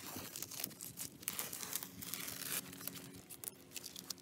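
Masking tape and paper being peeled off a tractor tyre and its freshly painted steel wheel rim: crinkling and short tearing rips, busiest in the first couple of seconds and thinning out after.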